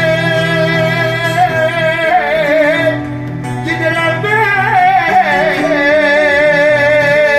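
A male voice singing an Erzurum uzun hava, a Turkish free-rhythm folk song: long held notes with wavering ornaments, broken by a short breath about three seconds in, over a steady low accompaniment.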